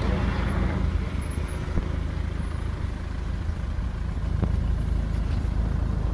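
A motor vehicle running, heard as a steady low rumble with a few faint clicks.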